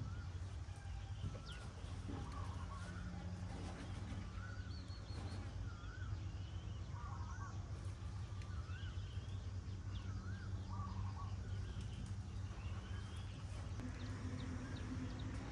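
Birds calling again and again with short chirps that rise and fall in pitch, over a steady low rumble of outdoor background noise.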